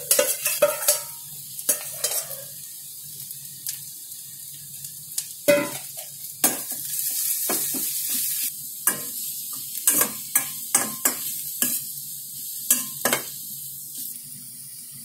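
Marinated mushrooms sizzling in hot oil in a stainless steel kadai, with a steel ladle scraping and clinking against the pan as they are stirred and fried with shallots and garlic.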